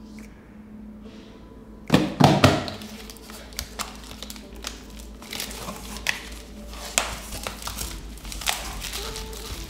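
A cardboard shipping box being handled and opened by hand. A few loud knocks come about two seconds in, followed by a run of short clicks and crinkling as the flaps are folded back and the packing is moved.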